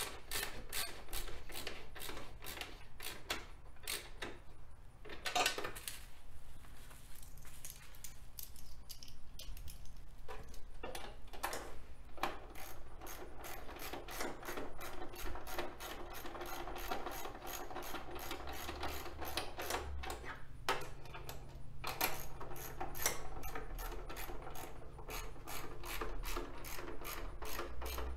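Hand socket ratchet clicking in quick runs with short pauses, tightening the 13 mm nut on a motorcycle lower fairing's mounting bolt.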